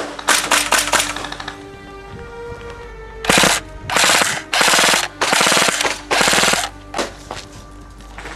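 Airsoft guns firing full-auto: a few quick rattling bursts at the start, then five loud bursts of about half a second each in the middle, and a couple of single shots near the end. Background music plays underneath.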